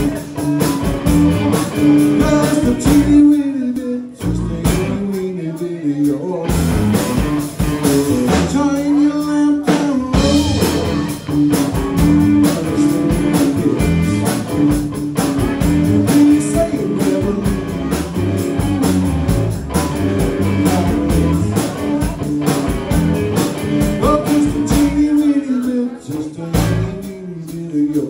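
Live rock-and-blues band playing: electric guitar, bass guitar and a Ludwig drum kit, with a man singing. The bass and drums drop out briefly twice, about three seconds in and near the end.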